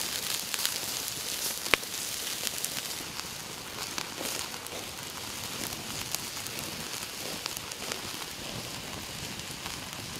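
Chicken intestines and unlaid egg yolks sizzling on a hot stone slab over a wood fire, with the fire crackling. A steady hiss is dotted with small ticks, with one sharp pop just under two seconds in.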